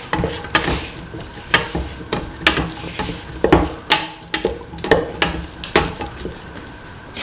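A spatula scrapes and knocks against a steel pan, about once a second, while stirring snake gourd, onion and tomato sautéing in oil. A steady sizzle of frying runs underneath.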